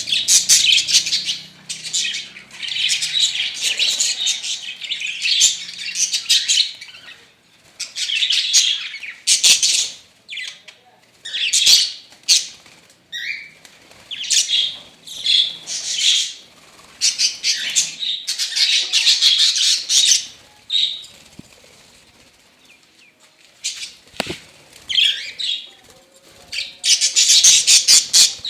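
Flock of pet budgerigars and cockatiels chattering and chirping in bursts of a second or two, with a quieter lull about three-quarters of the way through.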